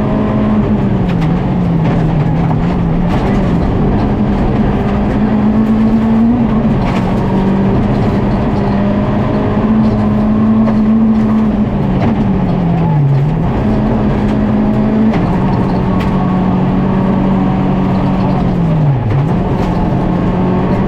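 Volkswagen Polo GTI R5 rally car's 1.6-litre turbocharged four-cylinder engine at full throttle, holding high revs with brief dips every few seconds as the driver lifts and changes gear.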